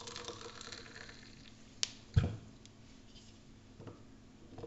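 Hot water poured into an AeroPress chamber of yerba mate, then a sharp click and a dull knock as the plunger is pushed into the top to seal it and hold the water in by vacuum, followed by a few light ticks.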